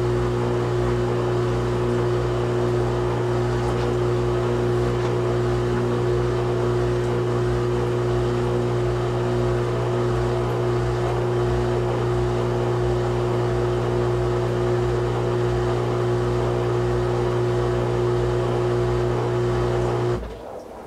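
Whirlpool Duet WFW97HEDC front-loading washer in its second interim spin, its direct-drive motor spinning the drum of towels with a steady hum. The hum cuts off suddenly about twenty seconds in.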